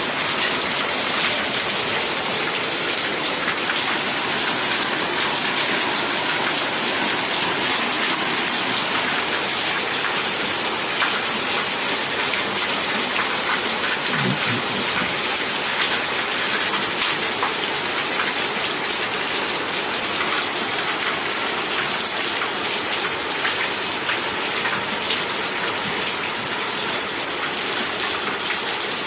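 Steady summer rain falling, an even hiss dotted with many small drop ticks. A brief low sound comes about halfway through.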